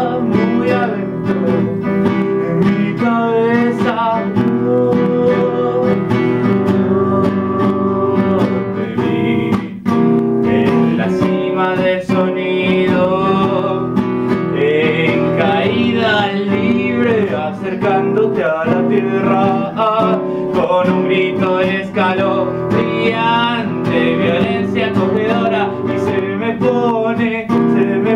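Acoustic guitar strummed and picked steadily, with a man singing over it.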